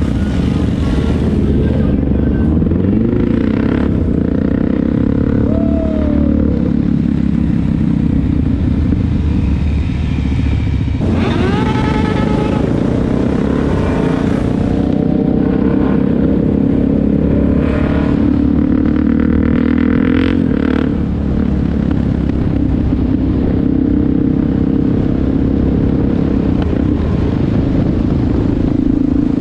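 Motorcycle engines running as a group of bikes rides together, heard from close on one of the bikes, with a steady low rumble. The engine note rises in pitch a few seconds in and again about midway as the bikes accelerate.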